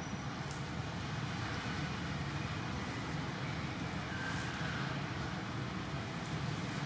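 Steady low rumbling background noise, with a couple of faint short clicks.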